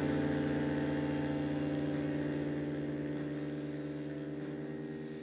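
Sustained electronic drone chord of several held pitches with a fast flutter, slowly fading out.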